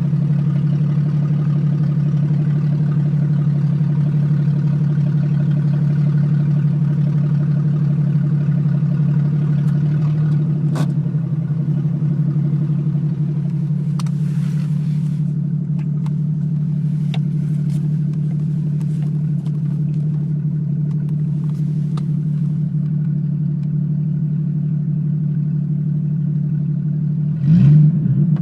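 Jeep XJ running with no muffler and no catalytic converter: a loud, steady exhaust note, then a brief rev that rises and falls near the end.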